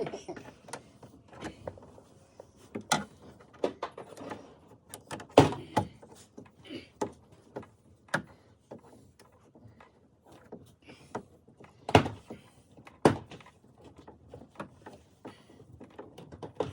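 Irregular clicks, taps and knocks of plastic dashboard trim and parts being handled and fitted, with a few louder knocks, about five seconds in and twice near twelve and thirteen seconds in.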